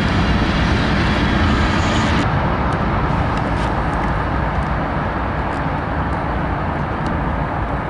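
BNSF diesel-electric freight locomotives passing close by, with a steady low engine rumble and wheel noise. About two seconds in, the sound changes abruptly and loses its high hiss, and a few light clicks follow.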